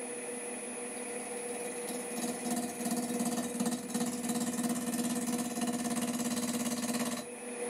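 Wood lathe running with a sycamore blank spinning, its motor giving a steady hum; from about two seconds in, a 3/8 bowl gouge cuts into the wood with a rapid, even rasp as the face is trued up, and the cut stops shortly before the end.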